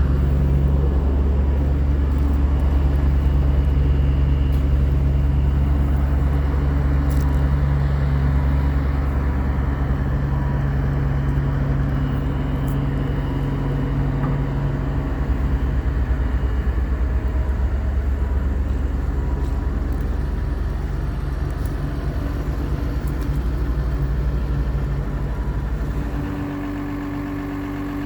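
Komatsu PC220LC-7 hydraulic excavator's diesel engine running steadily with a deep drone. Near the end it drops quieter and its note changes, as the engine settles lower.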